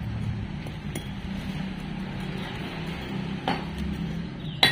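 A soap-lubricated plastic hose being twisted and pushed by hand into a steel pipe sleeve, with a steady low hum behind it. A metallic knock comes about three and a half seconds in and another near the end.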